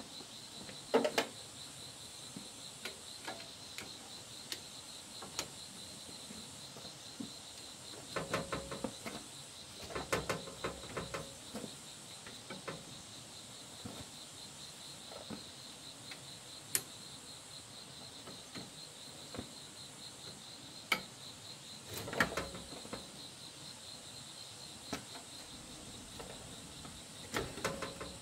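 Steady insect chirring, with short clusters of metal clinks and rattles several times as a steel bar is worked against a small stationary engine that is not running.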